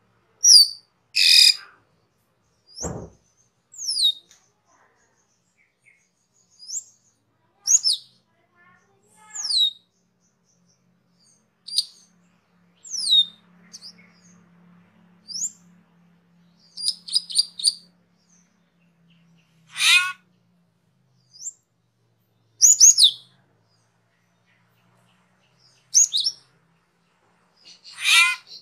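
Asian glossy starling (cucak keling) calling: sharp, high whistled notes that slide downward, one every second or two, with a few quick chattering runs. A single low thump comes about three seconds in.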